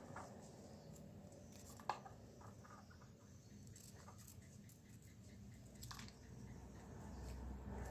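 Faint scattered clicks and short rustles of hands handling the plastic film and gift ribbon of a kite hummer, with one sharper click about two seconds in.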